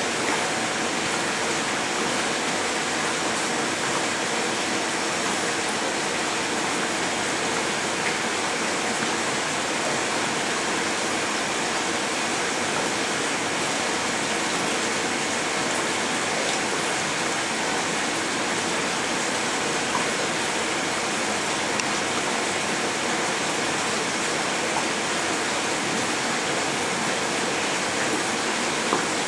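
Steady rush of running water in a fish-rearing tank, unchanging throughout.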